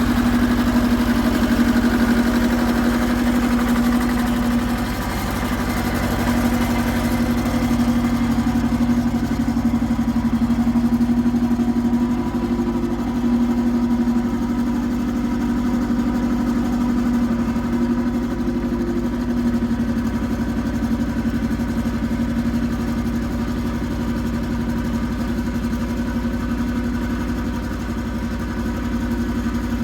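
Iseki TX1300 compact tractor engine running steadily at an even pitch while ploughing.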